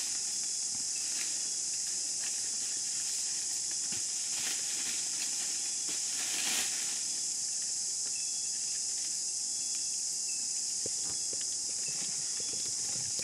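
Steady, high-pitched chorus of rainforest insects, with a few faint clicks and short chirps.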